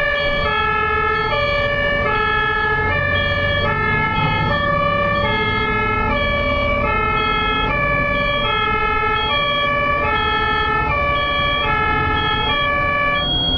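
German ambulance two-tone siren (Martinshorn) sounding continuously, a high and a low tone alternating, each held about half a second. Low vehicle and road rumble runs underneath.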